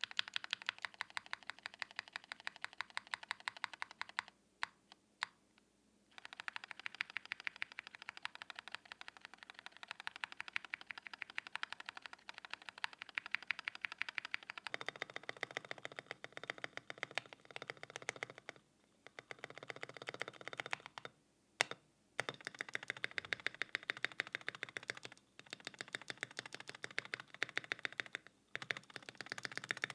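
Rapid typing on a Mode Eighty custom mechanical keyboard with linear switches, a fast run of key clacks broken by short pauses. The keyboard is on a polycarbonate plate at first, then on a POM plate from about halfway, where the clacks turn lower and fuller, and on a brass plate near the end.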